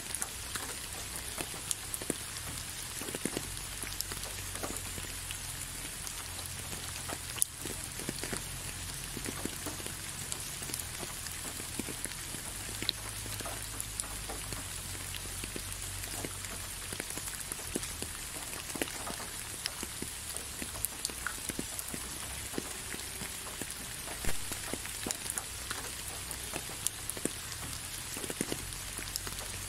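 Steady rain falling, with many separate drops ticking sharply and irregularly on top of the even hiss.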